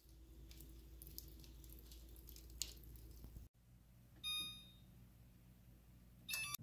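Quiet handling of cookie dough balls being set out on metal baking sheets, soft squishy touches and clicks, with a short ringing clink of metal about four seconds in and another near the end.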